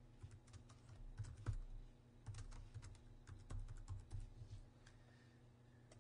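Faint typing on a computer keyboard: a quick, irregular run of key clicks that stops about five seconds in.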